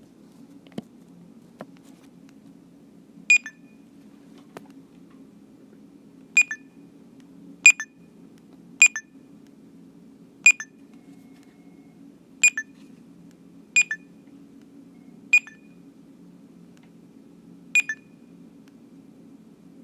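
Barcode scanner beeping as items are scanned: nine short, high single beeps at irregular intervals of one to two and a half seconds, over a steady low hum.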